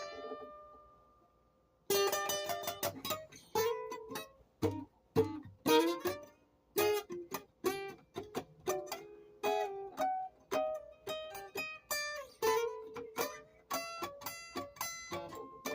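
Instrumental music played on a plucked string instrument. A chord rings out and dies away, and after about two seconds of quiet a quick melody of single plucked notes begins and runs on.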